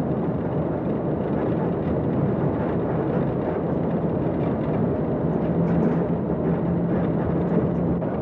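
Vehicle engine running steadily, a constant low hum under a dense, even drone.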